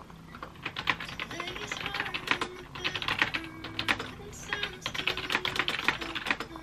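Fast typing on a 2019 MacBook Air keyboard: quick runs of key clicks broken by two short pauses.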